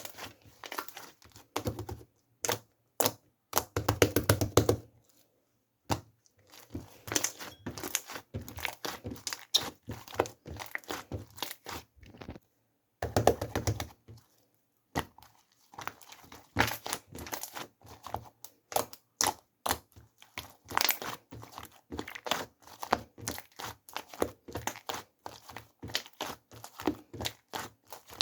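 Irregular run of clicks, knocks and crinkling rustles from objects being handled, with short pauses about five and twelve seconds in.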